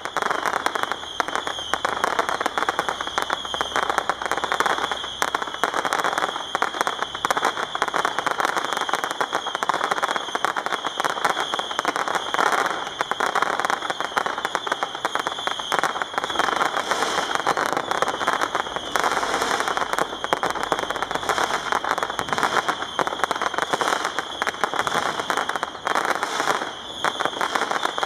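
Fireworks crackling and popping in a dense, continuous stream of small bangs, over a steady high hiss.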